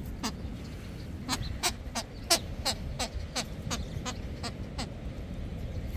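Squeaker in a plush gingerbread-man toy squeezed by hand, a quick irregular run of about a dozen short squeaks, each dropping in pitch.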